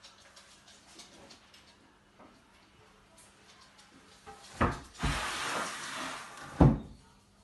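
Frameless glass window panels handled on their track: a knock, then a panel sliding along the track for about a second and a half, ending in a louder knock as it comes to a stop.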